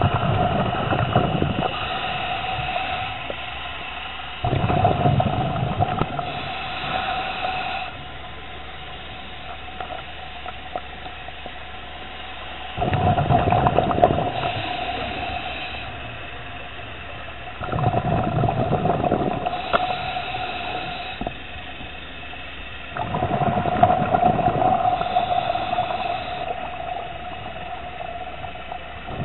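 Scuba diver breathing through a regulator underwater: five bubbling exhalations of two to three seconds each, about every five seconds, with a fainter hiss between them.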